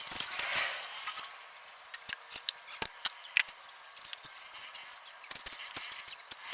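Scattered light clicks and taps of small parts and hand tools being handled while a compressor pump is reassembled, with a quicker run of clicks near the end.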